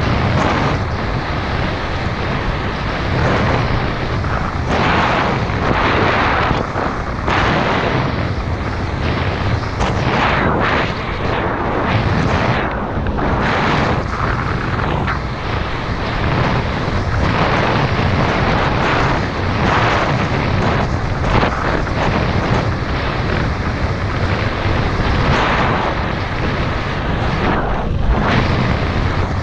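Loud wind buffeting on the camera microphone and rumble of a mountain bike rolling fast down a dirt trail, with frequent knocks and rattles as the bike jolts over bumps.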